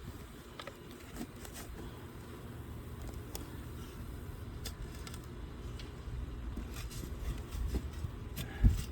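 Shovel digging into garden soil, with scattered soft scrapes and clicks over a low rumble and one heavy thump near the end.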